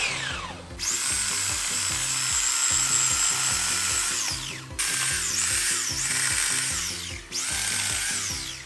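Electric chainsaw run in three bursts cutting small branches, a high whine that winds down in a falling pitch each time the trigger is let go. Background music with a steady beat plays underneath.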